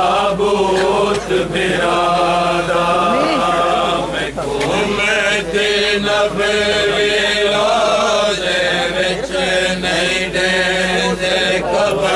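Crowd of men chanting a mourning chant together: many voices at once, holding drawn-out notes, loud and unbroken.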